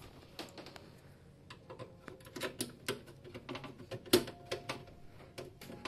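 Screws being driven into a graphics card's metal mounting bracket in a PC case: a run of small, irregular metallic clicks and ticks, with one louder click about four seconds in.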